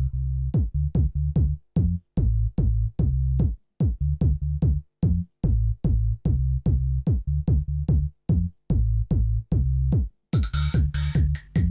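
Electronic background music: a steady drum-machine beat with a pulsing bass line, joined near the end by a bright synth layer.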